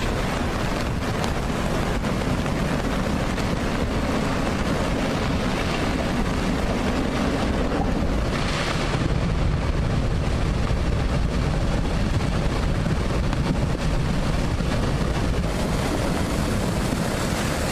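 Flash flood: a surge of muddy water and rocks rushing down a stony channel, a steady heavy rushing noise with a deep low rumble.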